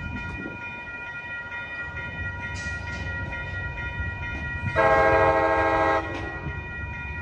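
Amtrak Capitol Corridor train's horn on the leading cab car, one chord blast of several notes at once, lasting just over a second about two-thirds of the way in, over the low rumble of the approaching train.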